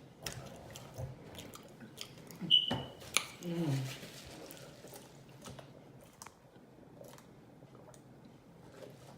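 Close-miked wet chewing and lip smacking from a person eating, with many small mouth clicks throughout. A sharp click with a brief high squeak comes about two and a half seconds in, followed by a short hummed 'mm' of enjoyment.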